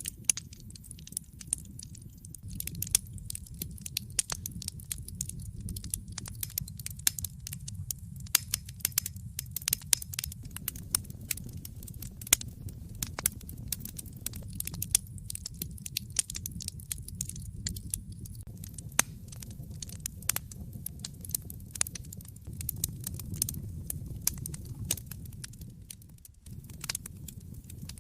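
Wood fire burning in a fireplace: frequent irregular crackles and sharp pops over a low steady rumble of the flames. The rumble drops out briefly near the end.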